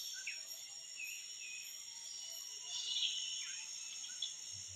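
Tropical forest ambience: a steady high-pitched insect drone with a faint pulsing chirp above it, and a few short bird calls, the loudest about three seconds in.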